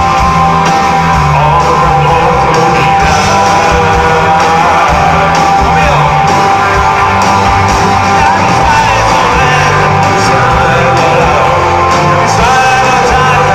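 Rock band playing live, loud: electric guitar, bass and drums, with a man singing lead.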